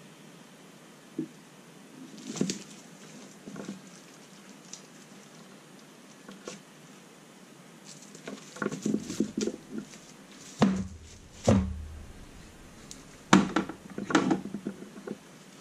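Handling noise: a power-supply circuit board and its wiring moved about and set down on bubble wrap on a cluttered bench. Scattered small clicks, taps and crinkles, with a few sharper knocks in the second half.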